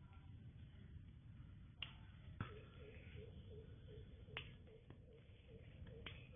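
Quiet, sharp snips of scissors cutting rambutan fruit stalks, about four separate clicks a second or two apart. From about two seconds in, a faint chirp repeats about three times a second behind them.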